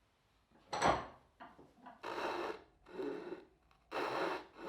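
Coping saw cutting through wood to remove dovetail waste, in even rasping strokes about once a second, after a short sharp knock near the start.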